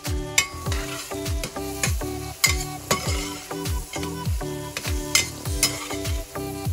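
Background music with a steady beat of deep, falling bass notes, over sliced red onions sizzling in butter on high heat. A metal spoon stirs and scrapes the stainless-steel pan, with a few sharper scrapes.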